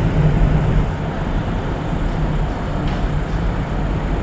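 Steady low rumble with a constant low hum from a docked car ferry's machinery, with cars boarding the vehicle deck.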